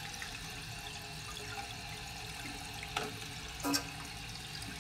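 Toilet tank's fill valve running with the supply left on, water hissing and trickling steadily into the open tank. Two small knocks about three seconds in as the new rubber flapper is pushed onto the overflow tube's pegs.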